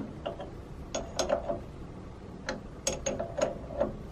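Metal-on-metal clicks from a C spanner working the nut of an ER25 collet chuck on a milling machine as a drill is changed: about a dozen irregular sharp clicks, some with a short ring.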